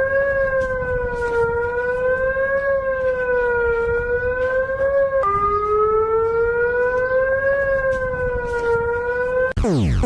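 Civil-defence siren wailing on one held pitch with its overtones, slowly rising and falling over a rumbling hiss. About five seconds in it jumps abruptly to a lower pitch, and near the end it cuts off into a fast run of repeated falling sweeps.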